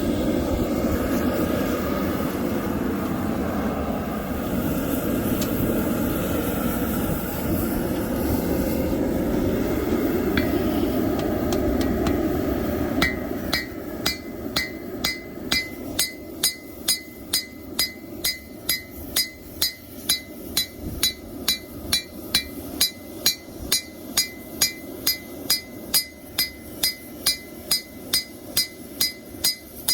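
A steady rushing noise for about the first thirteen seconds. Then hand-hammer blows on a hot steel knife blade on an anvil, about two a second, each with a short metallic ring, as the blade is drawn out and its edge smoothed.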